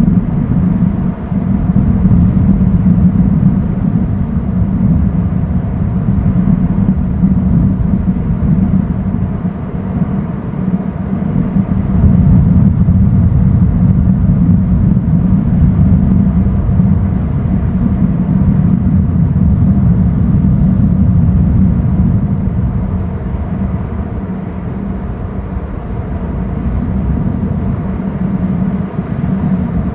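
Loud low rumble of wind buffeting an outdoor microphone, swelling and easing in gusts.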